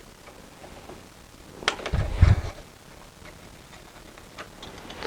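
Magnetic bending brake being worked on thin brass sheet: a few light metal clicks, with a short clatter and a dull thump about two seconds in.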